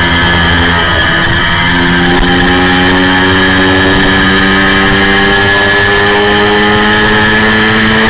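Honda VFR400's V4 engine at high revs under hard acceleration, its pitch climbing slowly and steadily as it pulls from about 11,000 to about 14,000 rpm in one gear, heard onboard the bike.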